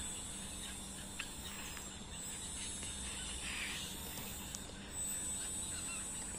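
Outdoor ambience: faint scattered bird chirps over a steady high hiss.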